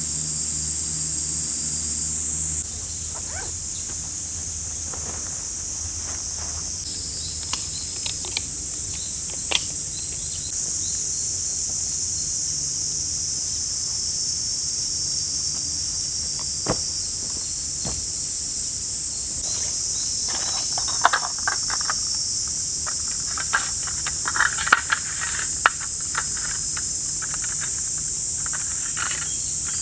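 Steady high-pitched chorus of summer insects buzzing, with scattered sharp clicks and snaps, more of them in the last third. A low hum sounds only for the first couple of seconds, then stops abruptly.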